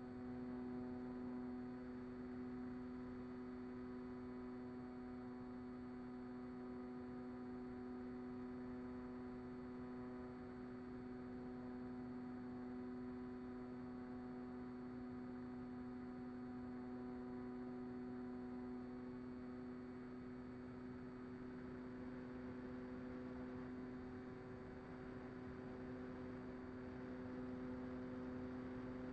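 Mini Talon FPV plane's electric motor and propeller in flight, heard through the onboard camera as a faint, steady hum made of a few fixed tones.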